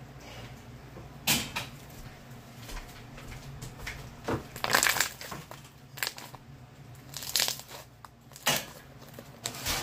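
Clear slime being stretched, folded and squished by hand close to the microphone: a string of irregular sticky crackles and squelches, a few of them sharp and loud.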